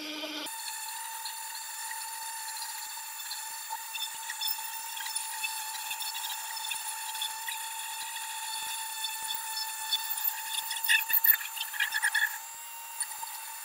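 Small high-speed rotary carving tool running with a steady whine as it grinds into wood to scallop out a petal. Louder scratchy grinding comes in about ten and a half seconds in, and the tool runs lighter after about twelve seconds.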